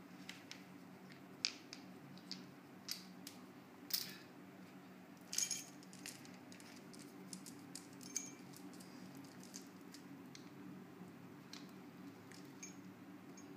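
Steady low room hum with scattered light clicks and clinks of small hard objects, the loudest about four and five and a half seconds in.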